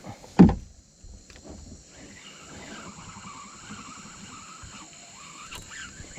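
Insects, crickets or cicadas, droning steadily at a high pitch. A single sharp low knock comes about half a second in, and from about two seconds on a faint wavering hum rises and falls underneath.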